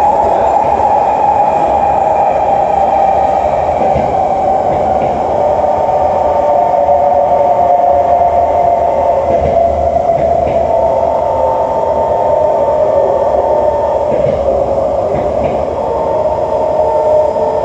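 Kawasaki C151 MRT train running between stations, heard from inside the carriage: a steady rumble of the wheels on the track with a motor whine whose pitch wavers slightly.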